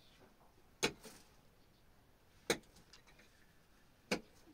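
Three sharp knocks at an even pace, about a second and a half apart.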